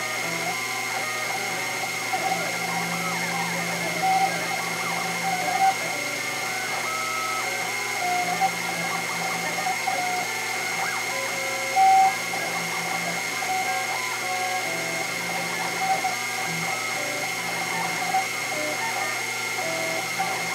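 Sherline CNC mill cutting Delrin with simultaneous rotary-axis moves: a steady high whine from the spindle, with the stepper motors sounding short tones that jump in pitch as the axes change speed. The end mill chews through the plastic, with a brief louder burst about twelve seconds in.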